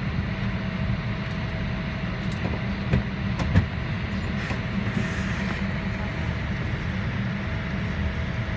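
Steady cabin noise of an airliner parked at the gate: a low hum and the rush of the cabin air supply, with a faint steady tone running through it. Two sharp clicks about half a second apart come a little after three seconds in.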